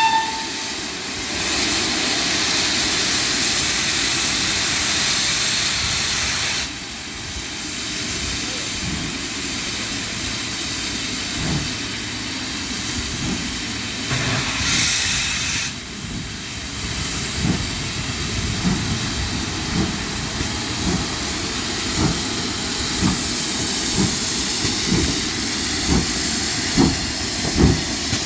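GWR 5101 class 'Large Prairie' tank locomotive No. 4110 getting under way: the last of a whistle blast at the very start, loud steam hissing, then slow exhaust chuffs about one a second that quicken near the end as it draws away.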